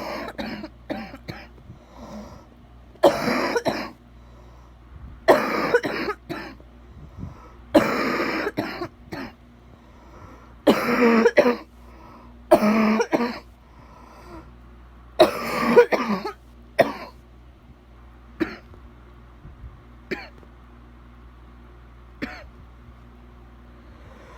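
A person coughing repeatedly with bad, wet coughs. Longer fits come every two to three seconds for the first two-thirds, followed by a few short single coughs.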